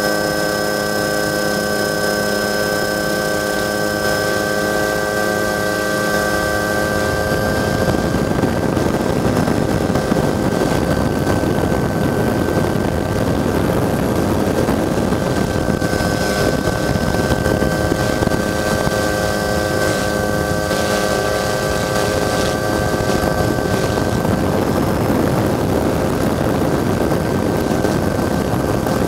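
Helicopter running: a steady turbine whine made of several fixed tones over a rushing rotor and wind noise, which grows thicker about seven seconds in.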